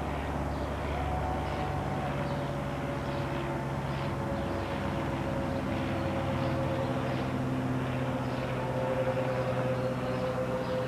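A Cessna 172S Skyhawk SP's four-cylinder Lycoming piston engine and propeller drone steadily as the plane passes overhead. The tone sinks slowly in pitch as it goes by.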